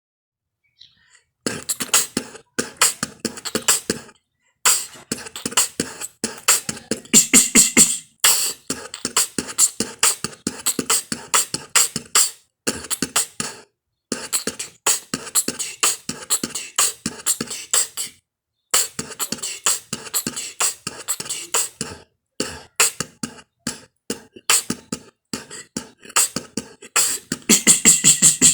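Beatboxing: rapid percussive beats made with the mouth, starting about a second and a half in and running in phrases broken by several brief silences.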